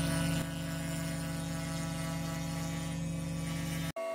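Wood shaper running with a steady hum as a beech plank is fed past its cutter to cut a rabbet. The hum eases slightly about half a second in and breaks off for an instant near the end before carrying on.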